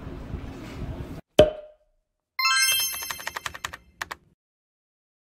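Faint street ambience ends with a single sharp hit sound effect. After a pause comes a quick rising run of bright chime tones, then a rapid patter of keyboard-typing clicks: outro sound effects for a channel name being typed into a search bar.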